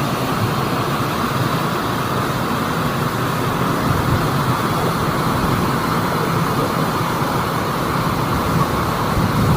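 Steady rushing noise of falling water from a waterfall.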